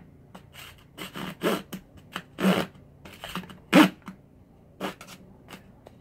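Small hand saw cutting into the dry, hollow shell of an apple gourd in short, uneven strokes, about six of them, the loudest about four seconds in.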